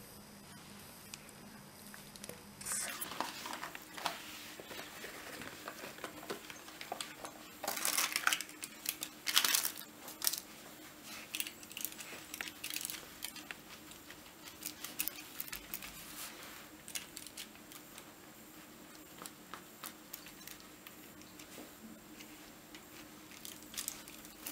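Parchment paper and a silicone baking mat rustling and crinkling as the mat is laid over batter on a baking tray and pressed down by hand. The loudest rustles come about eight to ten seconds in, followed by soft pats and small taps.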